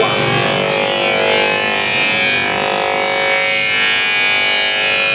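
Electromagnetic fields of gas-filled light tubes and a television, picked up by a hand-held copper-wire antenna and heard as sound: a loud, steady electric buzz of many stacked tones. Its pitch briefly sweeps near the start and again near the end as the antenna moves.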